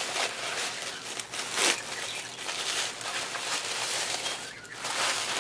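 Packaging being handled and opened: irregular rustling and crinkling, loudest about a second and a half in and again near the end.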